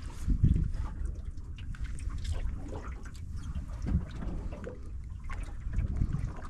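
Water lapping and trickling against a small aluminum boat's hull, over a low rumble that swells now and then, with scattered light clicks and knocks.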